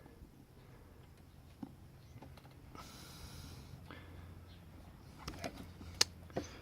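Small metal padlock parts being handled while a chamber plug is fitted into the lock body: scattered faint clicks and taps, a short hiss near the middle, and a few sharper clicks toward the end, the loudest about six seconds in.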